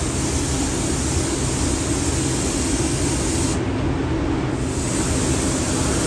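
Gravity-feed paint spray gun hissing as clear coat is sprayed on, the hiss cutting out for about a second midway and then resuming. A steady low rumble runs underneath.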